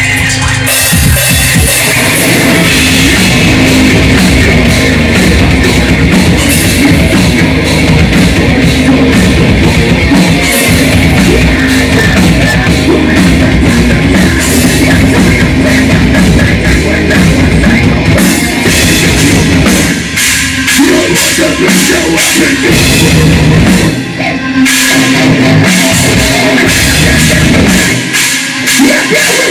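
Heavy rock band playing live: distorted electric guitars over a drum kit, with a few short breaks in the second half.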